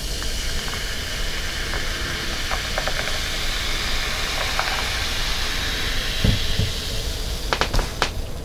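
Sparkling water poured in a thin stream into a glass of ice, a steady hissing fizz of carbonation. Near the end the pour stops and a few sharp clicks follow.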